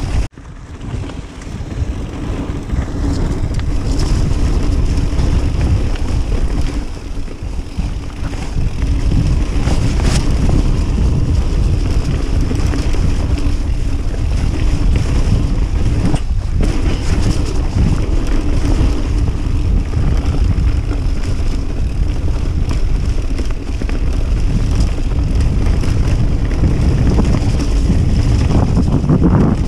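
Wind rushing over an action camera's microphone, mixed with the tyre rumble and chatter of a full-suspension mountain bike descending a dirt forest trail at speed. The noise drops out briefly just after the start and again about halfway through.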